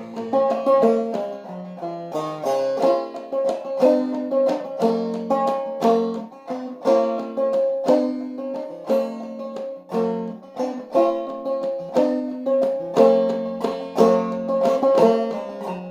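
Clawhammer banjo tuned low to cGCEG playing an instrumental break of the tune: a steady, even run of plucked notes with one high note recurring throughout.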